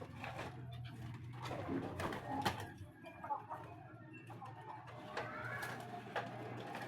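Domestic pigeons cooing, with scattered sharp taps and clicks.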